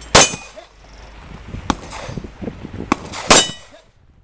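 Two handgun shots about three seconds apart, each followed by the ringing of a steel target being hit, with a few fainter knocks between them.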